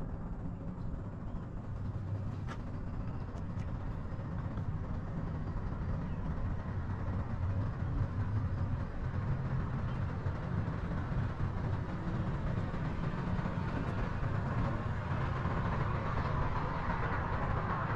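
Steady low rumble and hiss of a cable car gondola cabin riding along its cable, with a few faint clicks a couple of seconds in and a brighter hiss building near the end.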